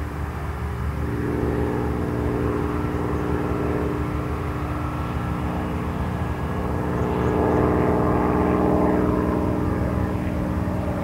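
BR Standard Class 4MT 2-6-4 tank steam locomotive working under steam as it approaches, with a rapid exhaust beat over a steady drone. It grows louder from about a second in and is loudest a little past halfway.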